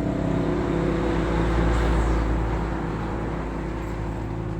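Motor vehicle engine running steadily with a low road rumble, a little louder about two seconds in.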